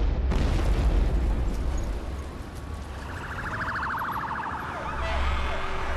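A deep rumble from a fuel explosion and fireball, easing after about two seconds; from about three seconds in, an emergency siren starts with rapid yelps, then slower rising and falling wails.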